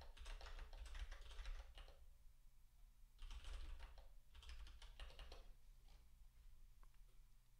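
Typing on a computer keyboard: three quick runs of keystrokes, the last ending about five and a half seconds in, after which only a few faint clicks remain.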